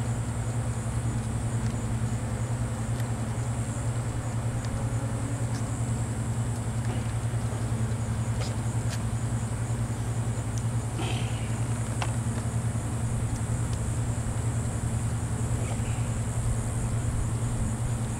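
Steady low mechanical hum, unchanging throughout, with a steady high hiss above it and a few light clicks about halfway through.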